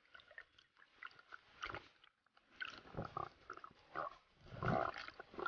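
Freediver breathing hard at the surface after a dive: irregular rough, grunting breaths, heaviest about three seconds in and again four to five seconds in.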